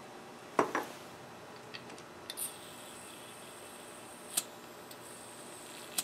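A sharp double knock about half a second in as the butane can and level are handled. Then, from about two and a half seconds in, a steady high hiss of butane gas forced from a refill can through a lighter fill valve into the level's glass vial, with a few short clicks.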